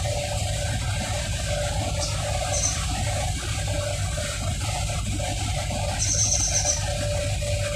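Steady low rumble of boat engines at work during a harbour tow, with a faint steady hum over it. Two short high chirps cut in, the second about six seconds in and lasting under a second.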